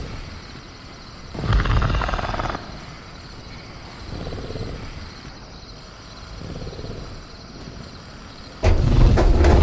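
Sound-effect velociraptor in a cage: low, rough growling rumbles and rattling of the cage, in a loud burst about a second and a half in, softer growls in the middle, and a louder burst starting near the end, over faint steady crickets.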